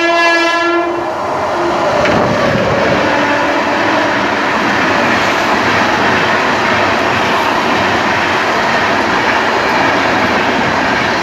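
A train horn sounds for about a second at the start. Then comes the steady loud rush and rattle of an Indian Railways express train's coaches passing close by on the next track, heard from the window of a moving train.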